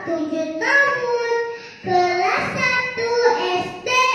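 A young girl's voice through a microphone, delivering her sermon in a melodic, sing-song chant: three phrases with long, drawn-out notes.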